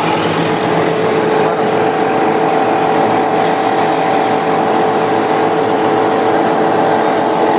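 Plastic-recycling extruder and pelletizer machinery running steadily under load: a loud, even mechanical drone with a constant whine on top.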